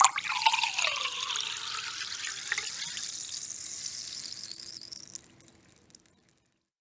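Sparkling water being poured, splashing with a fizzing hiss, the pitch of the pour rising as the vessel fills. The pour tails off about five seconds in and the fizz fades away.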